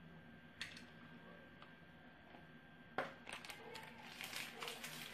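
Faint kitchen handling around a pressure cooker and stock pot. A light click comes early, then a sharp knock of something on cookware about three seconds in, followed by a stretch of crackling and rustling.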